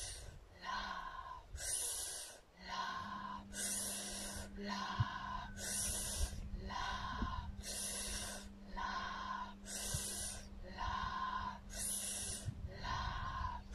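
Forceful rhythmic breathing through the nose, about one breath a second, each breath paced to a yoga twist. The breaths alternate between a sharper, hissier one and a fuller one. A faint steady low hum comes in about three seconds in.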